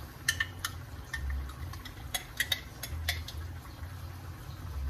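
Scattered light clinks and taps of a utensil against a glass jar and glass bowl as thick Alfredo sauce is scooped out, in two small clusters, over a low steady hum.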